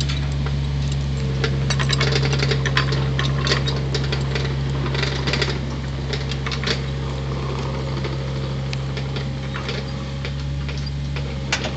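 Steel trailer safety chains rattling and clinking against a pintle hitch as they are hooked on, mostly in the first half, over a steady low engine hum.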